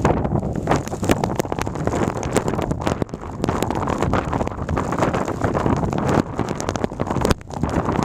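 Blizzard wind buffeting the microphone: a loud, continuous rough rumble with many irregular clicks and crackles, dipping briefly twice.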